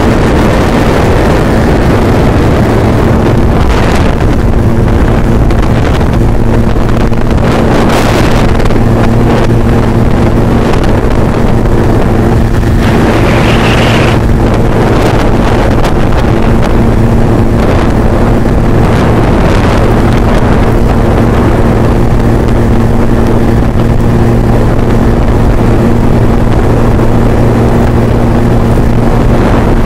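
Scooter engine running at a steady pace while riding, a constant drone that holds its pitch, with wind rushing over the microphone.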